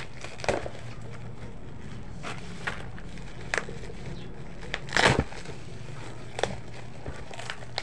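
Plastic packaging being pulled open by hand: a black plastic bag and bubble wrap crinkling and crackling in short, irregular bursts, the loudest a little past halfway.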